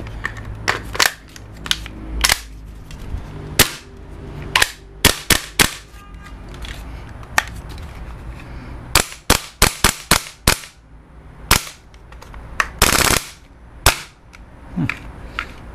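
WE MSK gas blowback airsoft rifle being handled with a short 20-round magazine: a string of sharp metal and plastic clicks and clacks as the magazine is seated and the action is worked, with a quick cluster of clacks partway through and a short rush of noise near the end.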